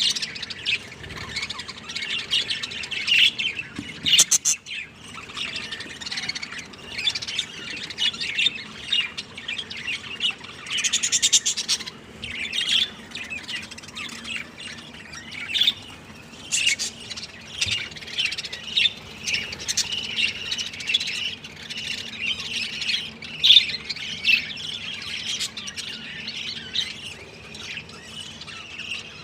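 Budgerigar chattering: a continuous stream of short, high chirps and calls.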